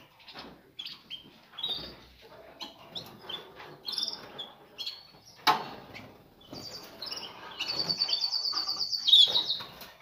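Caged songbirds chirping with many short, high calls, and a fast trill about eight seconds in. A single sharp knock sounds about five and a half seconds in.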